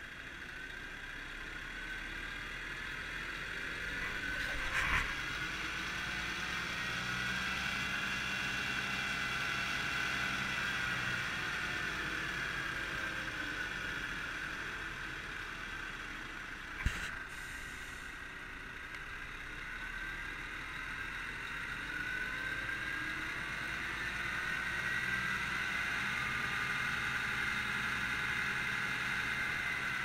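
Scania G490 concrete mixer truck's engine and hydraulic drum drive running, with a whine that slowly rises and falls twice as the speed is raised and lowered from the drum's radio remote. Two short sharp knocks, about five seconds in and just past the middle.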